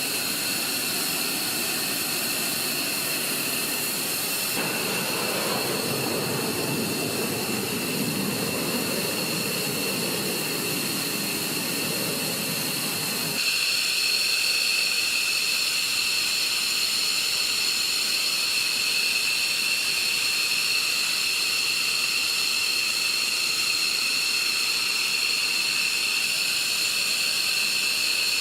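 Fighter jet engines running with a steady high-pitched whine over a rushing hiss. The sound changes abruptly twice, about four seconds in and again about halfway through, where it gets a little louder and the whine gets stronger.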